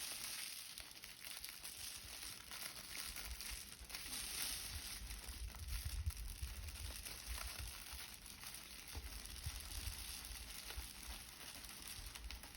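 Dry rice grains pouring into a homemade shaker with twisted aluminium foil inside: a continuous fine patter and hiss of many small grain ticks.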